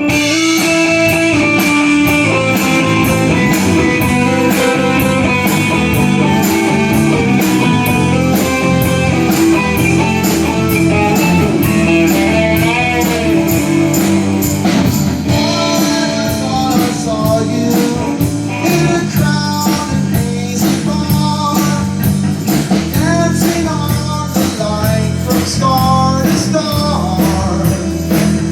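A rock band playing live: a lead guitar with bending notes over bass and a steady drum beat.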